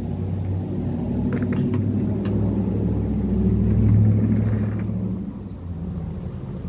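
A passing motor vehicle: a low engine rumble that swells to its loudest about four seconds in, then fades away. A few light clicks come in the first couple of seconds.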